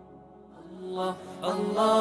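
Chant-like vocal music of a gojol (Bengali Islamic devotional song), sung without words: a held note fades almost to quiet, then voices come back in about half a second in and grow louder.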